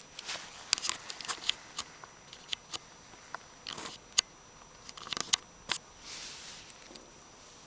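Benchmade Morpho 51 balisong knife being handled: an irregular string of sharp clicks and clacks as its handles and latch knock together, with a soft rustle about six seconds in.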